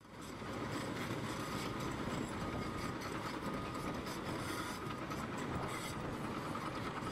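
Steady rumble and clatter of machinery, fading in at the start, with a faint short beep repeating about once a second.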